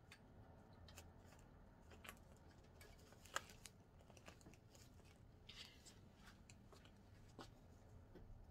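Near silence: low room hum with a few faint, short clicks and rustles of something being handled.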